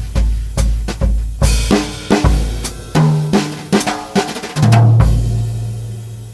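Pearl Midtown micro drum kit played with brushes: a groove of bass drum and snare, then a fill down the toms ending on a loud floor tom and bass drum hit about five seconds in that rings out and fades.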